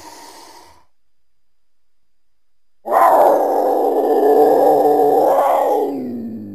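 Mountain lion (cougar) calling: a faint breathy sound at the start, then one loud call that breaks in about three seconds in, lasts about three seconds and trails off near the end.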